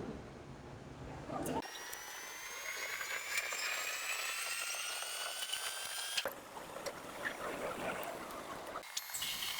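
Metal lathe running: a machine whine made of several tones that rise slowly and steadily in pitch for about four seconds, then break off abruptly. A steadier whine follows near the end.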